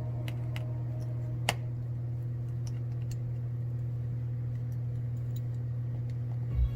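Small, sharp clicks and ticks of hand tools against a phone's screws and bracket during a teardown, with one louder click about a second and a half in, over a steady low electrical hum.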